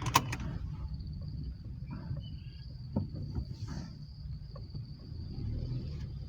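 Steady high-pitched insect trill over a low rumble, with a few sharp clicks at the start and a single knock about three seconds in.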